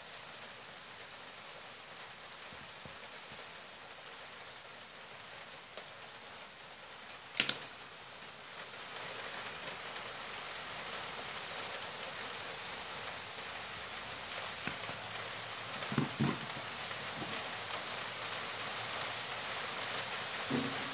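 Steady hiss with handling noises from a small salvaged DC motor being worked by hand: one sharp click about seven seconds in, then a few soft knocks later on.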